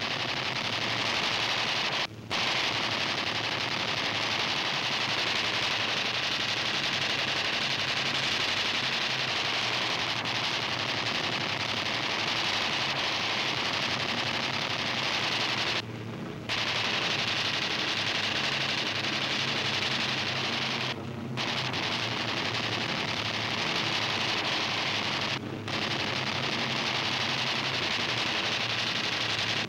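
Fighter aircraft machine guns firing in long continuous rapid bursts over strafing footage, broken by a few short pauses. The sound is a steady dense rattle with hiss.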